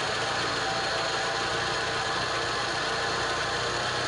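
Peugeot 406 petrol engine idling with a steady grinding from the air-conditioning compressor's pulley bearing, heard while the AC is switched off: the bearing is worn, and the noise stops once the compressor is engaged.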